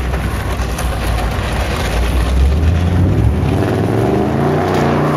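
Car engine and road noise heard from inside the car, a low rumble at first, then the engine note rising in pitch as it accelerates from about three seconds in.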